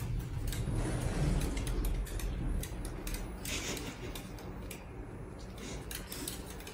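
Light, irregular ticking of a small dog's claws on a hard tile floor, over a low steady hum.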